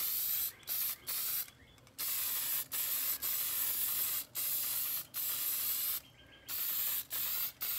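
Aerosol spray paint can hissing in a string of short bursts, some well under half a second and others about a second long, with brief gaps between them, as a light coat is misted on.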